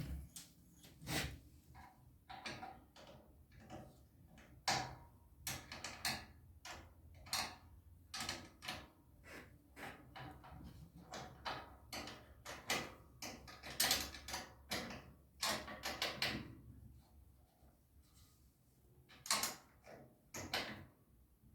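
Irregular metallic clicks and knocks of a wrench tightening bolts on a generator's stand, with a short lull near the end.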